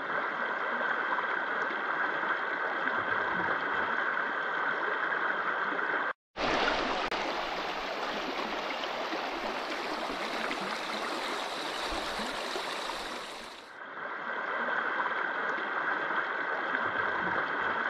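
Shallow glacial river channel running over a gravel and stone bed, a steady rushing ripple of water. The sound drops out for a moment about six seconds in, and the middle stretch is brighter and hissier before it settles back.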